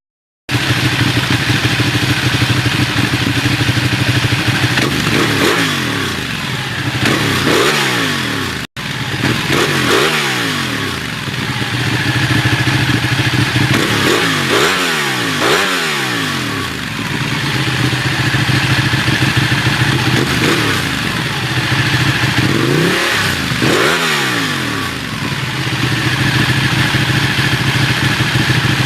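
Ducati L-twin motorcycle engine idling and revved in repeated throttle blips. The pitch rises and falls back to idle about eight times.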